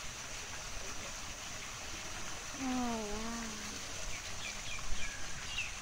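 Waterfall pouring steadily into a pool. About three seconds in, a short voiced call dips and rises in pitch, and faint high chirps come near the end.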